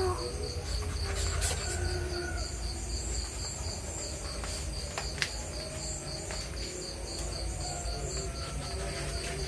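Crickets chirping steadily, about three chirps a second, with faint low cat growls breaking in now and then and a single sharp click about five seconds in.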